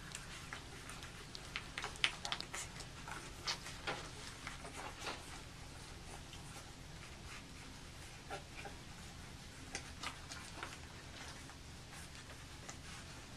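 Newborn puppies nursing on their mother: quick, irregular little clicks and smacks of suckling, thicker in the first few seconds and sparser later.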